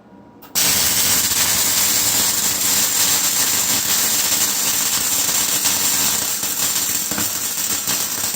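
Vulcan welder's arc welding a bead on an exhaust downpipe: a loud, steady hiss that strikes suddenly about half a second in.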